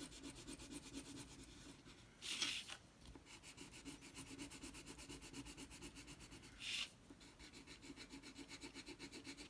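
Wax crayon colouring on paper in rapid back-and-forth strokes, a faint scratchy rubbing, with two longer, louder swishes about two seconds in and near seven seconds in.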